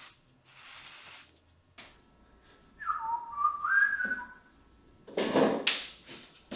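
Soft scrubbing strokes of a sponge rubbing dye onto leather. Then, about three seconds in, a person whistles a short run of notes for about a second and a half. A loud rustling scrape of something handled on the workbench follows near the end.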